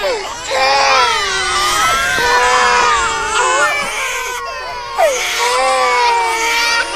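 Several infants crying at once, their high, wavering wails overlapping continuously, with brief gaps as they draw breath.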